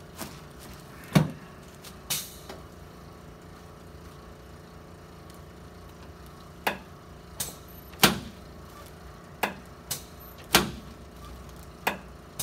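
Chiropractic adjustment on a treatment table: a series of about ten sharp cracks and knocks, the loudest about a second in and about eight seconds in, with a quiet stretch of a few seconds between them.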